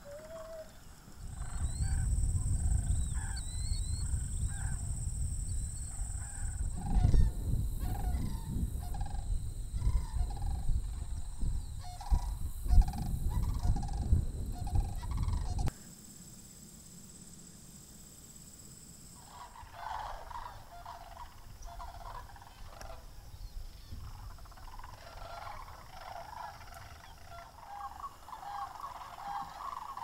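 A flock of sandhill cranes calling, many overlapping calls repeating throughout. A low rumble lies under the calls for the first half and cuts off suddenly about halfway through, after which the calling grows denser toward the end.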